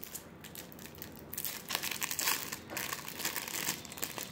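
Clear plastic packet around a blue gel eye-mask insert crinkling as it is handled and turned in the hands. The crackling comes in irregular bursts, faint at first and louder and busier from a little under two seconds in.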